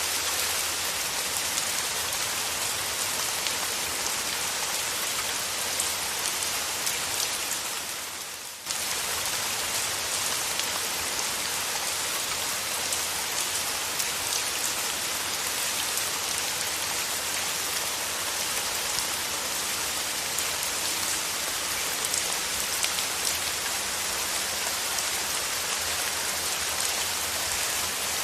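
Steady, dense rain. About eight seconds in it fades down for a moment, then cuts straight back in.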